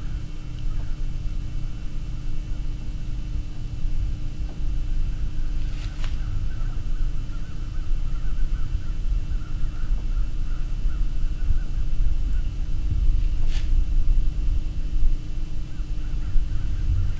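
Steady low rumble on the microphone, with a couple of short distant bird calls, one about six seconds in and another past the middle.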